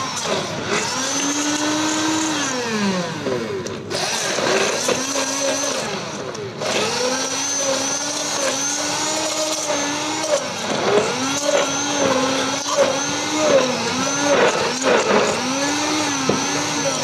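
Hand (immersion) blender pureeing roasted pumpkin chunks with water in a steel pot: a steady motor whine whose pitch repeatedly sags and recovers as the blade works through the chunks, with brief lulls about four and six seconds in.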